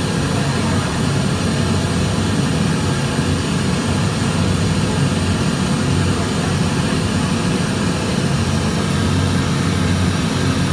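Steady low rumble of a vehicle on the move, with road and wind noise on the microphone.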